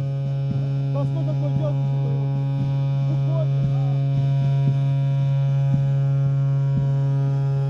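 A loud, steady low hum with a stack of overtones, holding one pitch throughout, with faint voices underneath.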